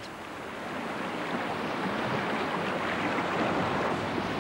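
Big-volume river rapid: turbulent whitewater rushing steadily, swelling a little louder over the first couple of seconds.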